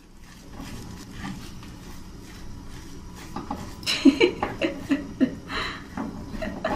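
A wooden spatula stirring and pressing mashed potato filling around a nonstick frying pan. A low steady background comes first; from about three and a half seconds in there are soft irregular scrapes and knocks of the spatula against the pan, mixed with a few short squeaks.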